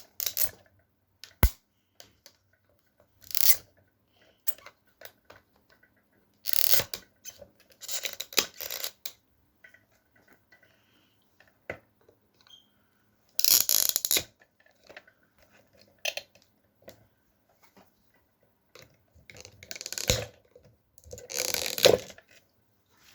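Plastic clips and housing of a car's in-tank fuel pump assembly being pried apart and handled: scattered clicks and snaps, with a sharp snap about a second and a half in, and short bursts of scraping and rustling.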